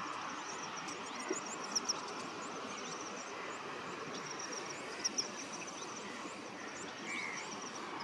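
Outdoor ambience: a steady even hum with repeated runs of rapid, high-pitched chirping and a few brief sharp clicks. The white-browed coucal is not calling.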